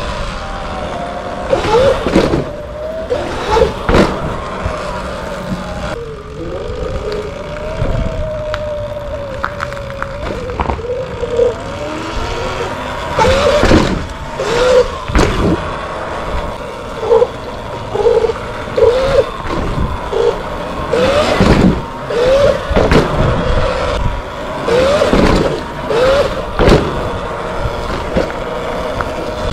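Sur Ron X electric dirt bike at low speed: the electric motor's whine wavers up and down in pitch, then rises in short chirps about once a second with repeated throttle blips, over tyre and ride noise. Several brief loud rushes of noise break in throughout.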